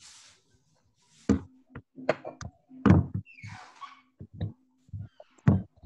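A series of irregular knocks and thumps picked up over a video-call microphone, with a faint steady hum between some of them.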